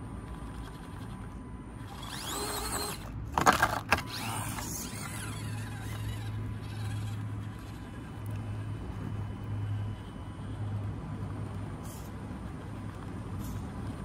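SCX24 micro crawler's 90-turn 130 brushed electric motor and gears whining as the throttle is worked, rising in pitch about two seconds in and again just after four seconds, while the truck struggles to climb a rock. A loud clatter of knocks on rock about three and a half seconds in as the truck loses grip and slides back down.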